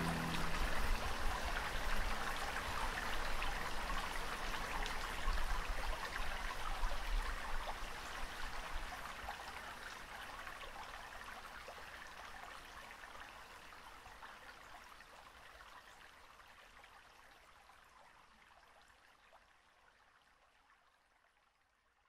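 Steady water sound, an even hiss flecked with fine crackle, fading gradually away to silence over about twenty seconds.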